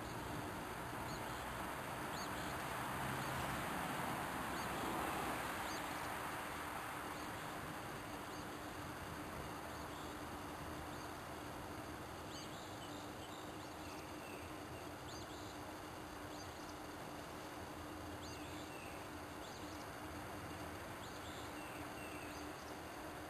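Outdoor woodland ambience: faint, short bird chirps come and go over a steady hiss and a low hum. A broad rush of noise swells and fades over the first six seconds.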